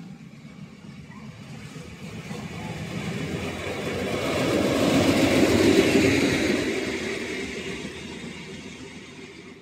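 A yellow railway maintenance vehicle passes close by on the near track. Its noise builds steadily, peaks about halfway through as it goes past, then fades away.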